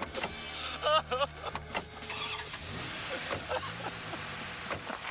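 A car engine running, with scattered knocks and clicks and a short wavering high tone about a second in.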